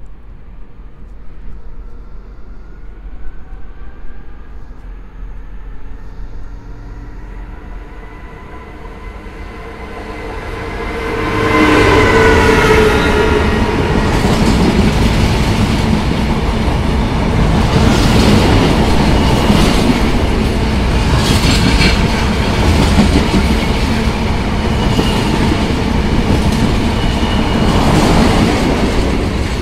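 Diesel freight train passing through. The locomotive's engine note rises as it approaches and drops sharply as it goes by about twelve seconds in. A long, loud run of wagons follows, rolling past with repeated wheel clacks over the rail joints.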